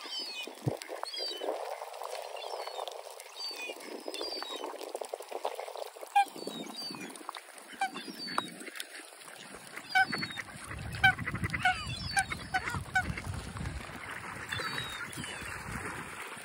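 Waterfowl calling: a string of short, repeated honking calls, with higher chirping calls between them. Gusts of wind rumble on the microphone partway through.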